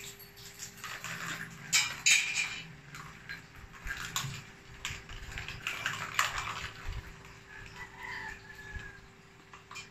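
A cat pawing and scratching at a round corrugated-cardboard scratch board with a plastic ball track: scratchy rasps mixed with the clatter and knocks of the plastic balls rolling round the track, loudest about two seconds in.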